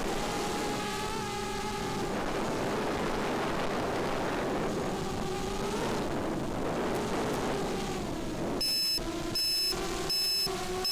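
Brushless motors and 5045 bullnose propellers of a 5-inch FPV quadcopter whining, the pitch rising and falling with the throttle, over a steady rush of wind. Near the end, a high electronic beep starts repeating about every three quarters of a second while the motors keep running.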